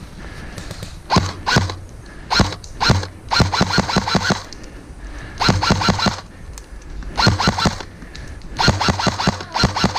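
Airsoft electric rifle fire: about eight short bursts of rapid clicking shots, spaced unevenly.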